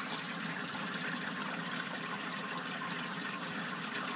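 Water trickling steadily through a commercial ice machine's water distribution system in clean mode, as ice machine cleaner fluid is poured from a bottle into the water trough.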